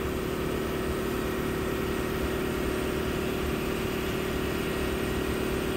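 Steady machine hum of shop machinery running, with a constant mid-pitched tone over a low rumble.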